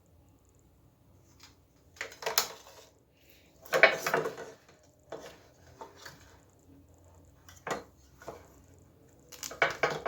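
Hard objects being handled, clattering and clinking in several short bursts, the loudest about four seconds in.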